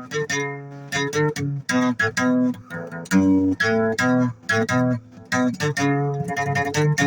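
Guitar playing an instrumental passage of the song: a steady run of picked notes and chords, with no singing.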